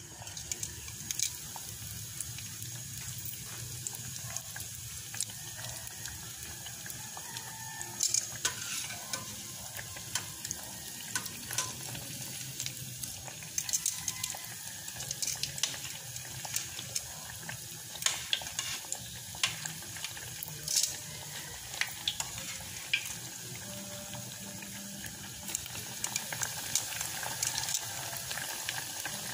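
Breaded tuna pie deep-frying in hot oil in a stainless steel pot: steady sizzling with frequent sharp pops and crackles, starting as the pie goes into the oil.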